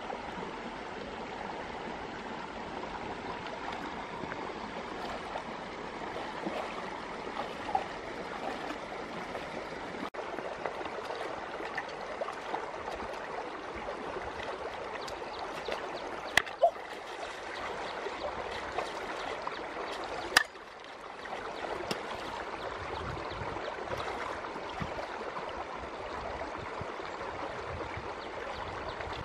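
Shallow rocky stream running steadily over stones, with three sharp clicks a little past halfway.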